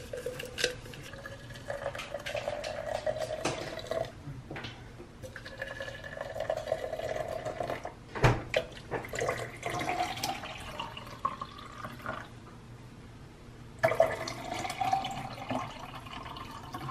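Hot water poured from an electric kettle into tall glasses of instant coffee, in several pours whose tone rises as the glasses fill. A knock about eight seconds in.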